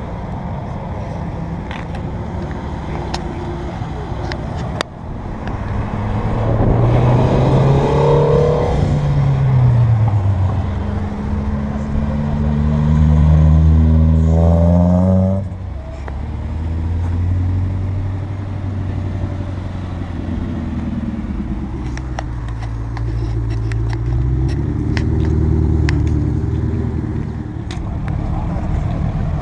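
Sports car engines accelerating hard on the street. About a fifth of the way in one engine revs up, dips, then climbs steadily for several seconds before cutting off abruptly. A second engine follows with a steadier note that rises again near the end.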